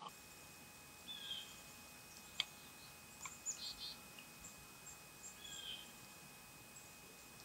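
Faint woodland ambience with small birds chirping: scattered short, high chirps, with two slightly longer calls about a second in and near six seconds. A single sharp tick about two and a half seconds in is the loudest sound.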